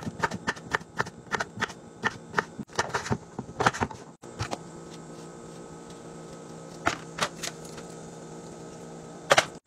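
Knife chopping a Persian cucumber and then green beans on a wooden cutting board: quick knocks about three to four a second that stop about four seconds in. After that a steady hum is left, with a few scattered knocks.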